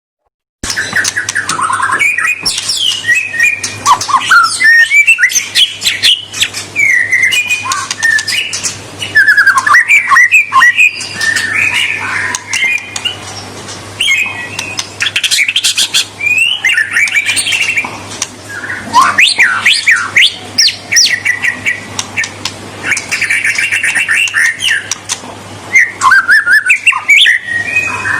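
White-rumped shama (murai batu) singing continuously in rapid, varied phrases of whistles mixed with harsh chattering notes, starting about half a second in. A low steady hum runs underneath.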